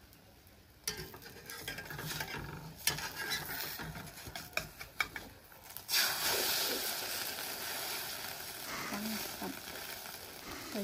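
Metal spatula scraping and tapping against a steel wok as an omelet is worked loose and flipped. About six seconds in, the egg sizzles loudly in the hot oil.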